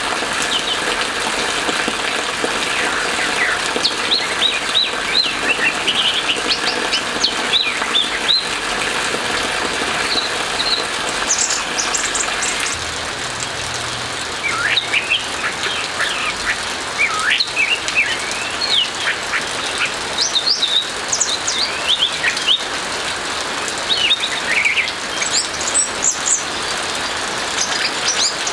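Orange-headed thrush in full song: clusters of quick, high, sweeping notes delivered in phrases with brief pauses between them, over a steady hiss of rain.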